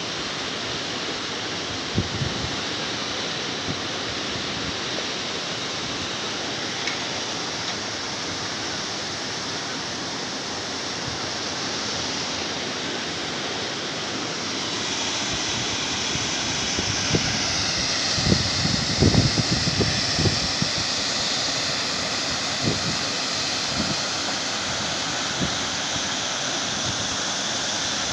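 Wind on a phone microphone: a steady rushing noise, with gusts buffeting the microphone in low thumps around the middle.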